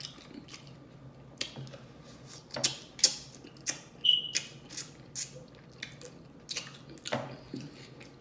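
Close-up wet mouth sounds of a person eating with their mouth open: irregular lip smacks and chewing clicks, with a brief squeak about four seconds in.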